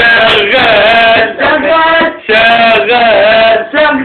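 A man singing an Egyptian Arabic song in long, wavering held notes, with short breaks between phrases.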